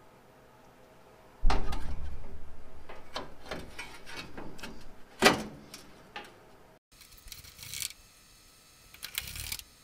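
Chrome headlight bezel being handled and fitted against the truck's sheet-metal front end: a sudden metallic clatter about a second and a half in that dies away over a few seconds, and another sharp clank around five seconds. After a cut, lighter metallic clicks and scrapes of the bezel and its screws.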